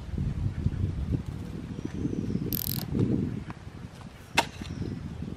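Metal mammoty (long-handled digging hoe) chopping into and dragging through dry, loose soil, giving a rough crunching scrape, with a sharp knock a little over four seconds in.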